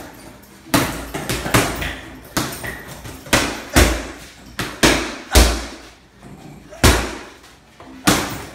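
Boxing gloves punching a Ringside heavy bag: about nine hard thuds at an uneven pace, some coming in quick one-two pairs, each trailing off briefly.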